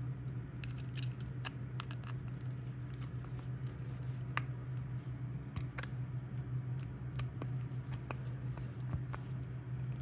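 Screwdriver tightening the screws of a plastic plug housing: scattered small clicks and scrapes of the tip in the screw heads and the plastic body shifting in the hand, over a steady low hum.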